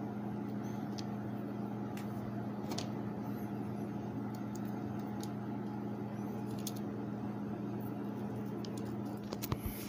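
A steady low hum, with faint scattered clicks and taps from small plastic switch parts and wires being handled, and a few sharper clicks near the end.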